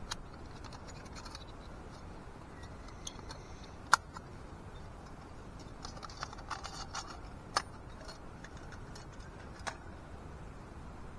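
Light metal clicks and clinks of Seek Outside SXL tent-stove parts being handled and fitted together. Three sharp clicks stand out, the loudest about four seconds in, the others near eight and ten seconds.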